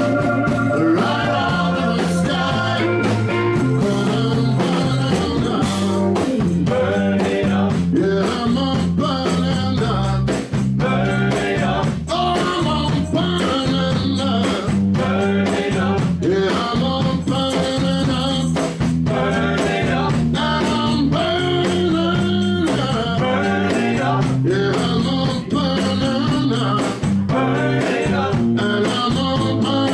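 A live blues-rock band plays with a steady beat, with electric guitar, bass and drums. A saxophone plays the wavering lead line over them.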